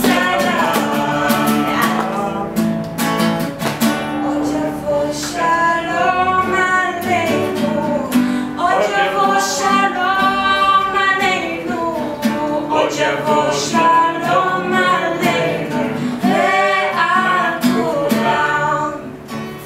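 A teenage girl singing a song into a microphone, accompanied by a strummed acoustic guitar. The song ends shortly before the end.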